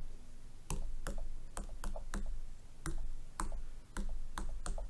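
Pen stylus tapping letters on a tablet's on-screen touch keyboard: about a dozen sharp taps on the glass at an irregular typing pace.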